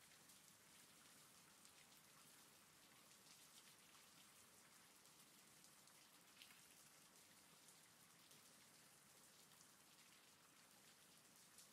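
Faint, steady rain, with scattered drop ticks over an even hiss.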